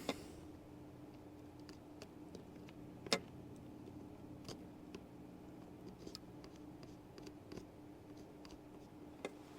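Faint scattered clicks and taps of small tools handling a circuit board during desoldering, with one sharper click about three seconds in, over a faint steady hum.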